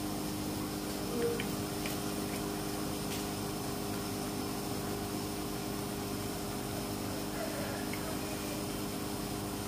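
Steady machine hum from a running motor, with a few faint clicks about one to three seconds in.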